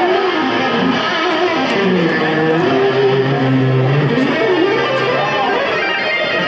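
A rock band playing live, led by an electric guitar playing a melody of bent, wavering notes over sustained low notes.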